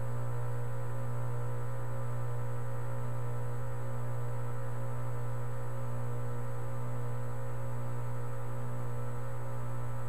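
2010 Tempstar 3-ton heat pump's outdoor unit running with a steady deep hum and no change in level.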